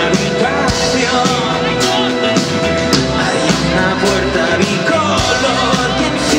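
Live rock band playing (electric guitars, bass and drums) with a singer's vocals, heard from among the audience.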